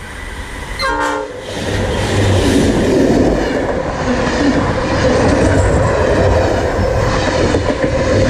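A train passing close by: a short toot sounds about a second in, then loud, steady rumbling running noise of the train takes over.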